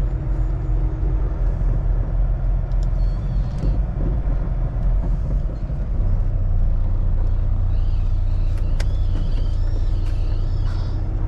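Semi truck's diesel engine running under the cab while the rig slowly reverses, with a steady low rumble that grows a little heavier about six seconds in. Faint wavering high squeals come in over it near the end.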